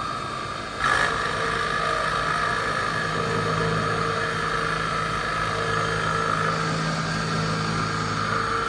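Eumach VMC600 CNC vertical machining centre running, its spindle milling holes in wood: a steady whine over a low hum, which gets louder about a second in and then holds level.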